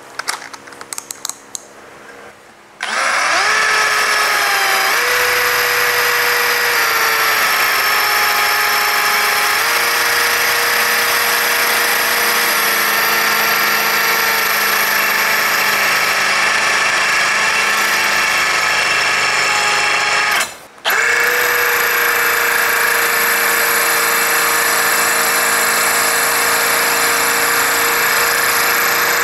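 A few clicks as the drill's chuck is tightened on the bit. Then a Bosch 18-volt cordless drill runs steadily while a 6 mm Bosch Expert Hard Ceramic bit bores into 1 cm thick granite tile. The motor's whine shifts slightly in pitch under load, stops briefly about three quarters of the way through, and starts again.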